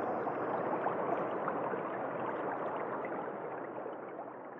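Running water, like a babbling stream, that swells in and then slowly fades away.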